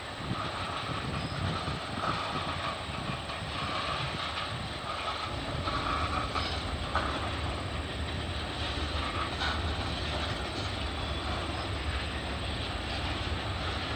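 CN freight train moving slowly while switching cars: a steady rumble from the train, with a few sharp knocks, one clear knock about seven seconds in.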